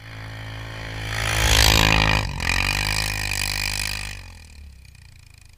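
A vehicle engine revving hard, growing louder over the first two seconds, its pitch dropping sharply a little past two seconds in and then climbing again, before it fades away over the last second or so.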